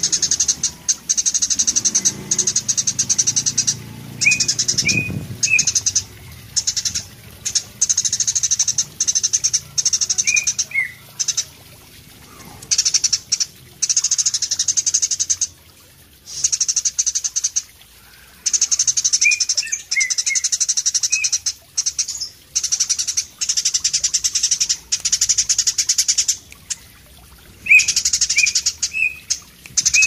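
Eurasian tree sparrow singing in full, continuous song ('gacor'): long runs of rapid, very high-pitched trilling chatter broken by short pauses, with a few lower chirps mixed in.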